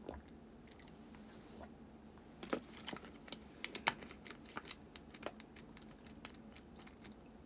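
A string of light, irregular clicks and taps, like typing, coming thickest in the middle, over a faint steady hum.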